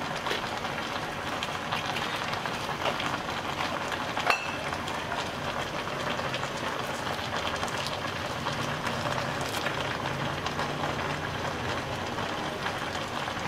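Steady cooking hiss from a pot of young jackfruit and chicken in turmeric gravy on the stove, with one sharp click about four seconds in.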